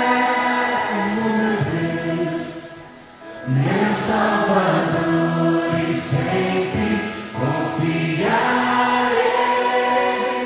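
Background music of a choir singing a slow song in long held notes, with a brief lull about three seconds in before the next phrase.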